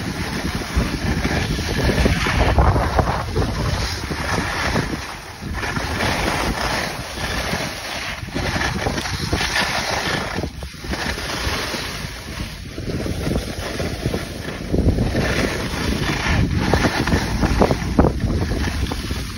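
Wind rushing and buffeting over a phone's microphone while skiing downhill, mixed with the hiss of skis sliding on packed snow.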